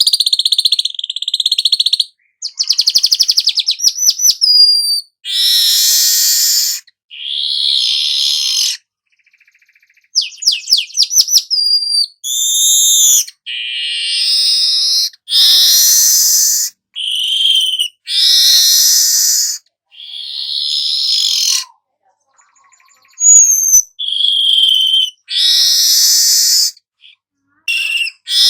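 Golden-headed weaver (manyar) singing a string of harsh, buzzy, hissing phrases about a second or two long with short gaps, broken twice by fast ticking rattles.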